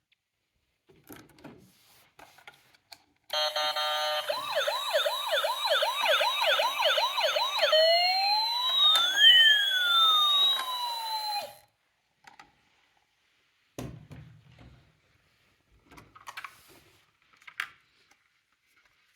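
Toy emergency vehicle's electronic siren sounding: a fast repeating yelp, then a slower rising-and-falling wail, cutting off suddenly after about eight seconds. Faint clicks and knocks of the toy cars before and after.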